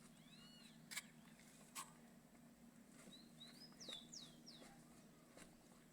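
Near silence with faint bird chirps: two arched chirps near the start and a quick run of short downward-sliding chirps in the middle. Two faint clicks come about one and two seconds in.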